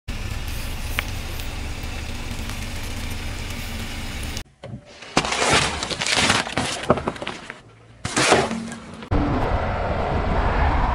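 Car tyre crushing fruit, a watermelon among it: an irregular run of loud wet crunches and cracks lasting about four seconds in the middle, set between stretches of steady outdoor rumble before and after.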